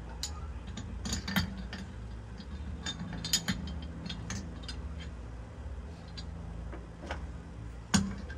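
Small metal coilover parts clicking and clinking by hand as a spacer and top mount plate are set onto the shock shaft above the air cup, in irregular light clicks with one sharper knock near the end.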